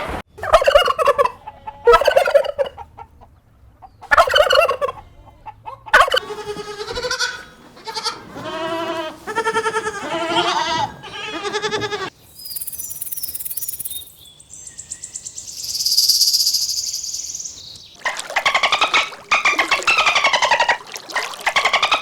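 Farmyard poultry calling, one bout after another of repeated, wavering calls. About halfway through, the calls give way for several seconds to a high hissing noise, then resume.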